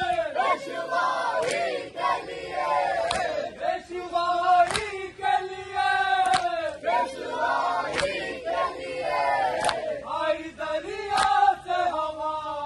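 A crowd of men chanting a Muharram noha (lament) together, with a sharp beat about every one and a half seconds in time with the chant.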